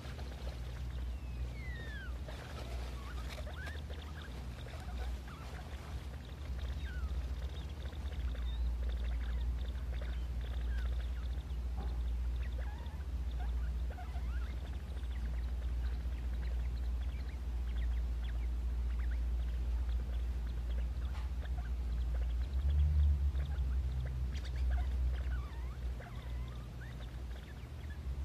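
Degus making their bubble sound, a continuous low bubbling, with a few short high squeaks scattered through it, one falling in pitch about two seconds in.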